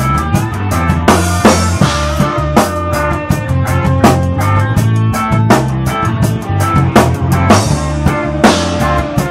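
Live rock band playing: a drum kit keeping a steady beat under electric guitars, with cymbal crashes about a second in and again near the end.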